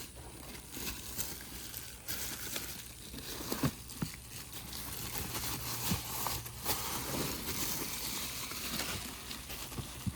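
Packing material crinkling and rustling as items are handled and unwrapped from a box, with a few light knocks and clicks.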